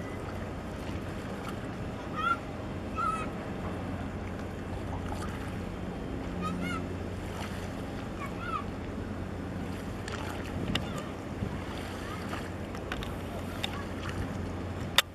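Harbour water lapping under a steady low engine hum, with a few short high calls about two, three, six and a half and eight and a half seconds in, and one sharp click near the end.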